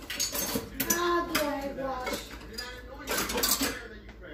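Dishes and utensils clattering a few times, with a person's voice talking underneath.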